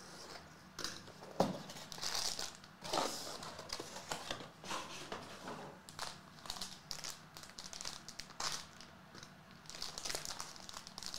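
A shiny black pouch rustling and crinkling as it is handled and opened, with a few sharp knocks and taps as a cardboard box is opened and handled, the loudest about a second and a half in.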